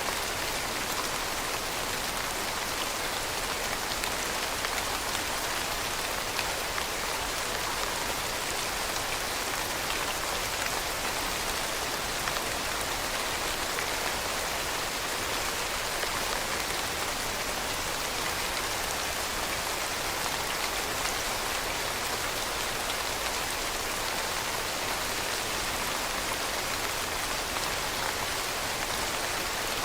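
Steady rain falling, an even hiss of drops on a surface with no change in strength.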